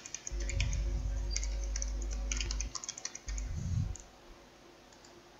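Typing on a computer keyboard: a quick run of key clicks for about three seconds, followed by a single low thump.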